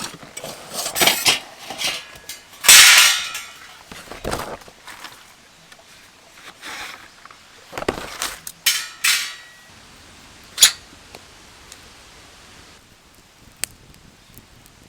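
Objects being handled: an irregular series of knocks, clicks and rustles, the loudest a noisy burst about three seconds in and a sharp click a little after ten seconds, after which it goes quiet.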